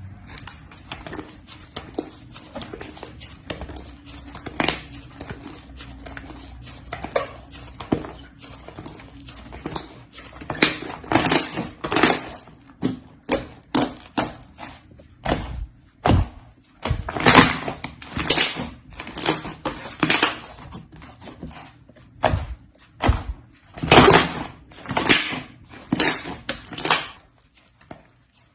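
Slime being pressed, squeezed and poked by hand, making irregular wet sticky clicks and pops. They are soft and sparse at first, then louder and more frequent from about a third of the way in.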